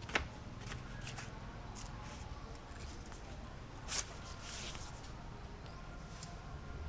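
Scattered rustles and sharp clicks, with a sharp click near the start and a louder scraping rustle about four seconds in.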